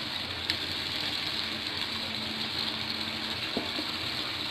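Tomato and onion gravy sizzling steadily in a pan, with a couple of faint clicks as pieces of fried rohu fish are set in and the pan is covered.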